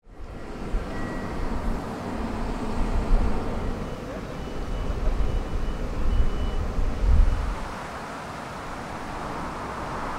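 Outdoor shipyard ambience: a low, gusting rumble, heaviest in the first seven seconds or so and then steadier, with a faint high beeping tone a few times near the middle.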